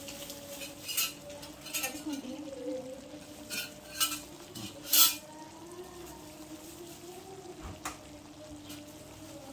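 Cooked mud crabs being stirred in a speckled stone-coated pan: a utensil knocks and clinks against the pan and the hard crab shells about six times, loudest about five seconds in, over sizzling and a low steady hum.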